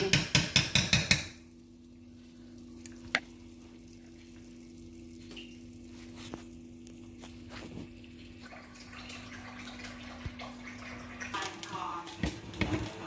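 A spoon clattering rapidly and rhythmically against a pot as the stew is stirred, stopping about a second in. Then a steady low hum with a few scattered clinks of kitchen utensils, more of them near the end.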